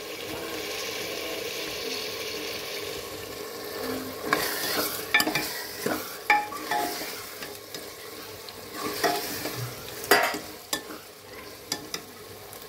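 Metal ladle stirring and scraping keema, peas and potatoes as they fry and sizzle in an aluminium pressure cooker, with several sharp scrapes and clinks of the ladle against the pot, most of them in the middle and near two-thirds of the way through.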